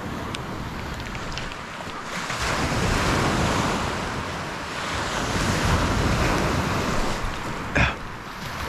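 Waves washing up on a beach, swelling and easing, with wind buffeting the microphone. A brief sharp sound cuts in near the end.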